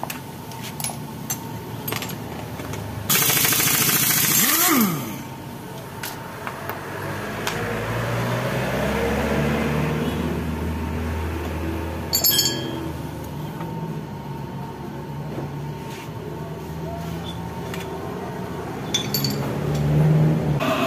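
Impact wrench run in one burst of about two seconds, about three seconds in, on a nut of a Yamaha Mio M3 scooter's CVT pulleys, ending in a falling whir as it stops. Metal clinks of tools and parts follow.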